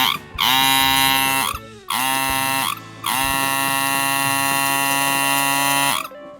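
Small electric motor buzzing at a steady pitch, switched on three times: a short run, a shorter one, then a longer run of about three seconds, each spinning up as it starts.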